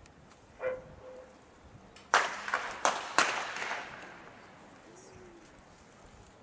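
Starter's pistol fired to start a 100 m sprint: a brief call, the starter's 'set' command, about half a second in, then a sharp gunshot about two seconds in that rings on, followed within about a second by two more sharp bangs.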